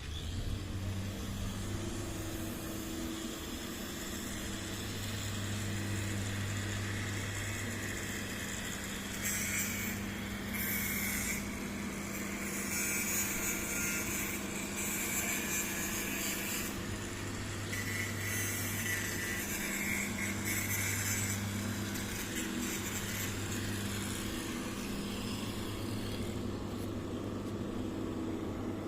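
A motor vehicle or machine engine running steadily with a low hum, joined in the middle by stretches of higher hissing and squeaking noise.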